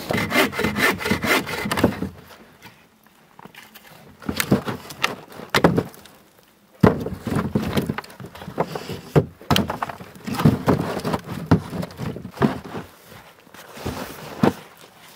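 Dry, dead hardwood logs scraping and knocking against each other and against a plastic sled as they are dragged and loaded, in several separate bursts.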